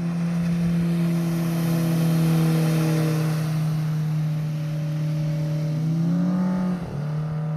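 Yamaha outboard motor running at a steady speed, an even engine hum with a hiss of water over it. Near the end its pitch climbs briefly, then dips sharply and settles back.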